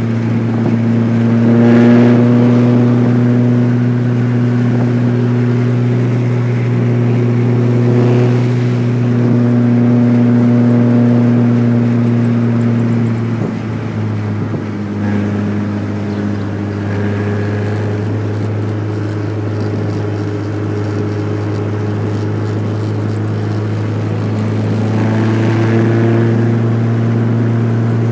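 Car engine and tyre drone heard from inside the cabin while driving, a steady low hum. The engine note shifts briefly about halfway through, then settles again.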